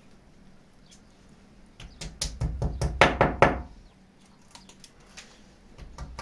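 A cluster of sharp knocks and taps against a wall about two seconds in, the loudest a little after three seconds, then a few lighter clicks: wall plugs being tapped into their drilled holes.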